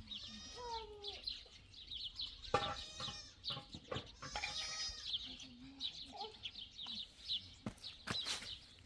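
Small birds chirping over and over, with several longer calls from farm animals, and a few sharp knocks, one about two and a half seconds in and two near the end.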